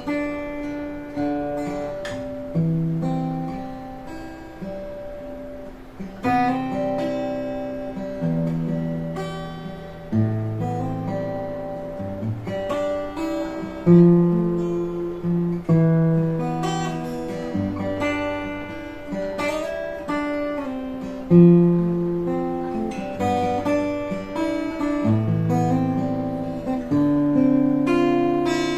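Clifton A2 Series acoustic guitar being played: a steady run of plucked chords and single notes over a moving bass line, each left to ring out and fade before the next. Two notes, about halfway through and about two-thirds through, are picked harder than the rest.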